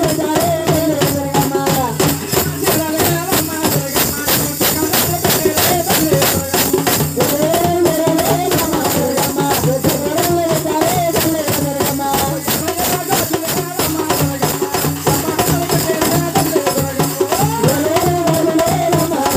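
A man singing a folk song through an amplified microphone over a fast, steady beat of jingling bells and percussion.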